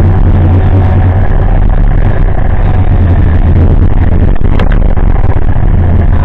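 Diesel engine of a TimberPro tracked feller buncher running steadily, heard from inside the cab, with a single sharp crack about four and a half seconds in.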